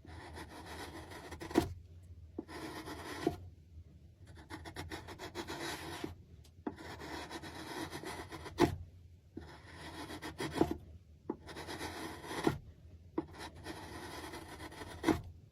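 A hand tool rubbing across wood in repeated strokes, each lasting one to two seconds with short pauses between, several ending in a sharp knock.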